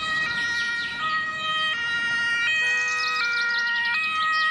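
German ambulance two-tone siren (Martinshorn) sounding, switching between a higher and a lower tone about every three-quarters of a second.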